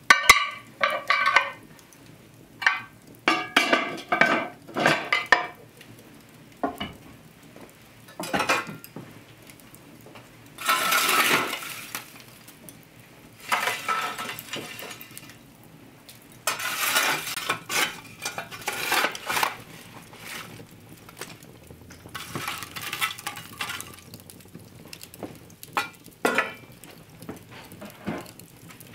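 Cast-iron Dutch oven and lid clanking together with a ringing metal sound several times in the first few seconds, then a fire shovel scraping up hot coals from the hearth and tipping them onto the lid in several long gritty scrapes, with scattered clinks near the end.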